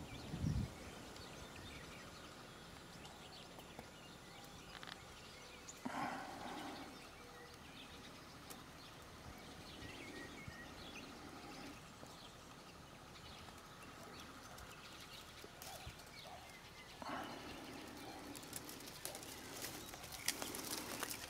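Faint outdoor ambience: a steady faint high hum with scattered small ticks, and a low thump just after the start. There are short louder sounds about six and seventeen seconds in, and footsteps on a dirt path toward the end.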